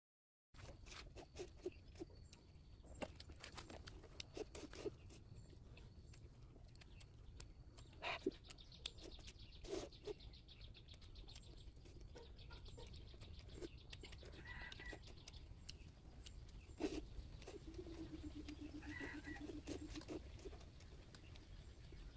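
Quiet eating of instant noodles: slurps and short clicks and taps of chopsticks and a ladle against a steel bowl. Faint bird and animal calls sound in the background, among them high chirps and one drawn-out low call a little past the middle.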